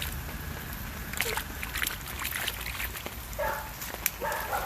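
Water sloshing and splashing in a flooded garden during rain, with scattered small splashes. Two short animal calls come about three and a half and four and a half seconds in.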